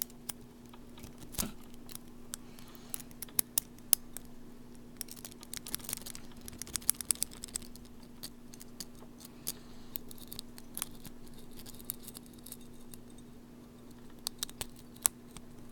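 Improvised lock-picking tools working the pin tumblers of a laminated lock with security pins during single-pin picking: irregular small metallic clicks and scrapes, busiest in the middle. A steady low hum runs underneath.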